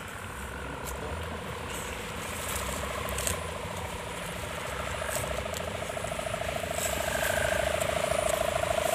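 Sendaren, the bow hummer on a large tanggalan kite, droning in the wind with a pulsing, engine-like buzz of the 'dompeng' kind, named after the diesel engine it imitates. It grows steadily louder.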